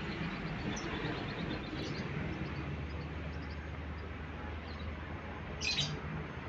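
Yellow lovebird giving a few faint short high chirps and one louder shrill call near the end, over a steady low hum and background noise.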